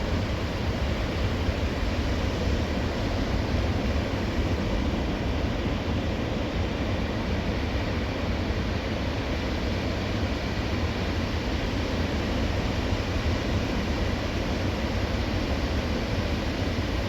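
Ocean surf washing in steadily, a continuous deep wash of waves with no single breaker standing out.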